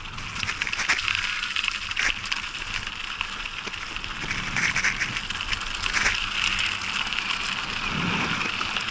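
Bicycle tyres rolling over a trail thick with dry fallen leaves: a steady crackling rustle with many small ticks.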